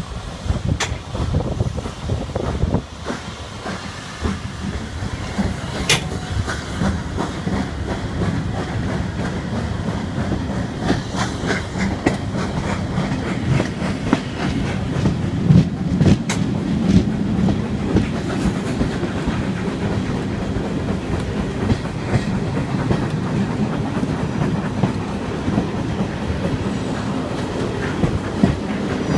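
Railway passenger coaches rolling slowly over jointed track and pointwork, their wheels rumbling with a sharp click now and then, heard from an open carriage window.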